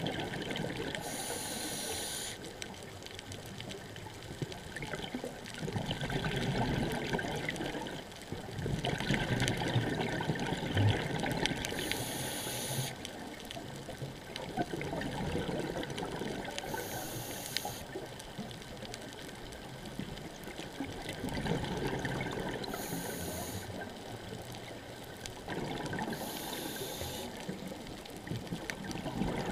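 Scuba diver breathing through a regulator underwater: a short hissing inhale about every five seconds, each followed by a long bubbling rush of exhaled air.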